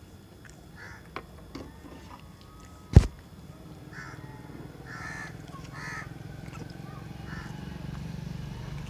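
Crows cawing, a series of short calls from about four seconds in, with one sharp knock about three seconds in.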